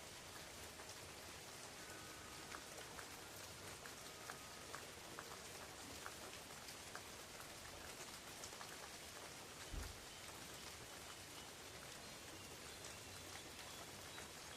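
Steady, soft rain falling on forest leaves, with many scattered drops ticking, and a single brief low thump a little under ten seconds in.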